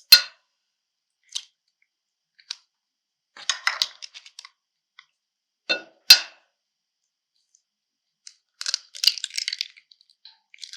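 Two eggs being cracked against the edge of a mixing bowl: two sharp knocks about six seconds apart, each followed by short crackling as the shells are pulled apart.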